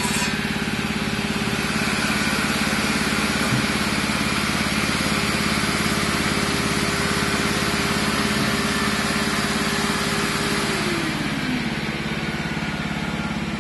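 Steady running of a portable generator's engine, converted to run on compressed hydrogen, under load from a radial arm saw and a shop vac. The saw's cutting noise stops right at the start. About eleven seconds in, one whine drops in pitch.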